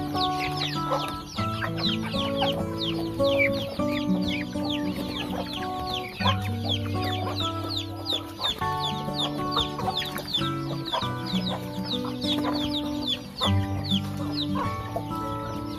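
A flock of chickens calling continuously in many short, high, falling peeps. Background music with slow held chords runs underneath.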